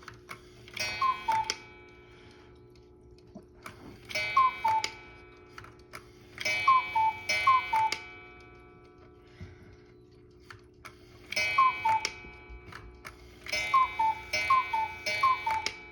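One-day cuckoo clock ticking and striking as its hands are turned to set the time: five bursts of two to four falling two-note cuckoo calls, each with its gong ringing, a few seconds apart.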